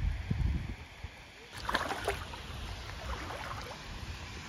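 Small boat pushing through flooded brush in shallow water, with a rustle and slosh about a second and a half in, over a low rumble.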